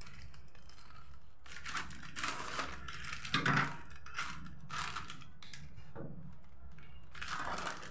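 A foil-lined plastic snack packet being snipped open with scissors and pulled apart by hand: a run of irregular crinkles and crackles.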